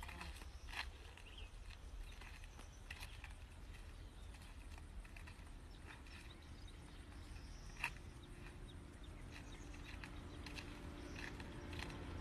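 Faint outdoor ambience with a low steady rumble and scattered light clicks. From about halfway a low steady engine hum comes up and slowly grows louder.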